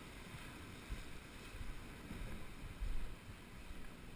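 Wind rumbling on a GoPro microphone over the wash of surf on the rocks, with a couple of louder bumps about one and three seconds in.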